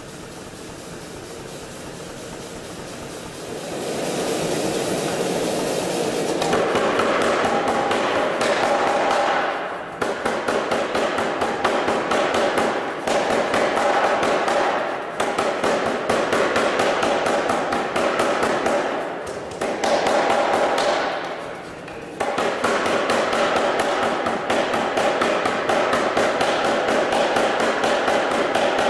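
Anyang self-contained air hammer forging a red-hot bar: after a few quieter seconds, rapid runs of blows, broken by short pauses every few seconds.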